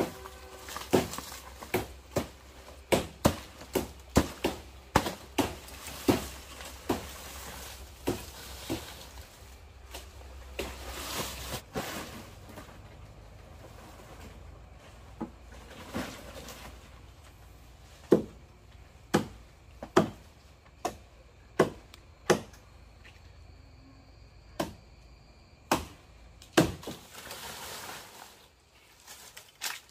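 A blade chopping in repeated sharp strikes: about one or two a second at first, thinning out in the middle, then about one a second again in the second half.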